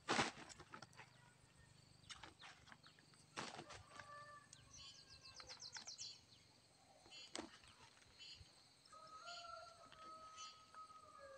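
Faint rustles and knocks from a plastic sack being handled in a field, the loudest just after the start. Birds call in the background: two drawn-out level calls and groups of short high chirps.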